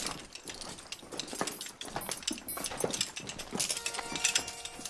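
Footsteps crunching and scuffing on a salt-crusted tunnel floor, an irregular run of small clicks. A steady tone of several pitches comes in near the end.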